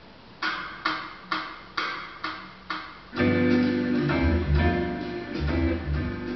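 Recorded music starting up on the home stereo: six sharp struck chords about half a second apart, then about three seconds in a fuller arrangement with a strong bass line comes in.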